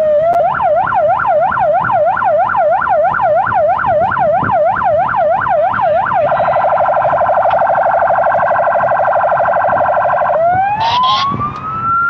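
Police patrol car electronic siren cycling through its tones: a fast yelp sweeping up and down about four times a second, then a rapid pulsing warble from about six seconds in, then a slow rising wail near the end.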